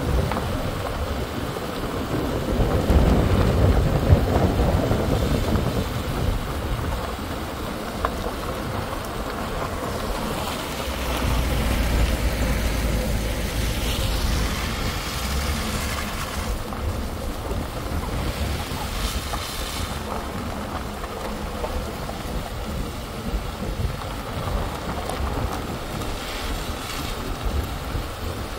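Vehicle driving along a driveway: a steady rumble of tyres and engine with wind noise on the microphone, growing louder for a few seconds near the middle.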